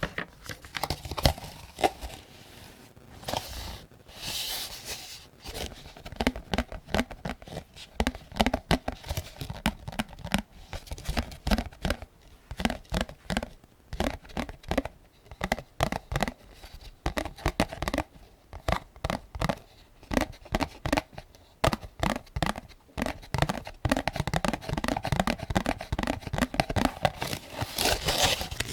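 7.62×39 cartridges being pushed one at a time into an AK-47 75-round drum magazine: a long run of short, sharp metallic clicks, one to three a second, irregularly spaced. There is a brief rustle about four seconds in and another near the end.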